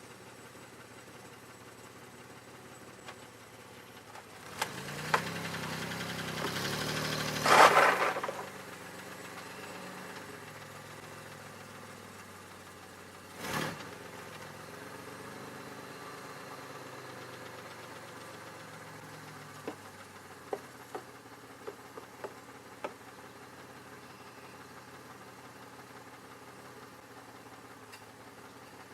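2002 Chevy Malibu engine idling steadily; it is the engine that will not shut down. About five seconds in, a louder stretch ends in a brief loud rush of noise, and a short loud sound comes about halfway. A few sharp clicks follow later.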